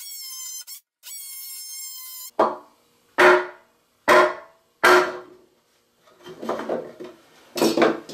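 DeWalt 20V cordless oscillating multi-tool whining steadily as its blade plunge-cuts through a thick walnut slab, stopping briefly and then cutting off about two seconds in. Then four sharp knocks on the walnut from a wooden mallet, about one a second, followed by softer scraping and knocking as the cut-out block is worked free.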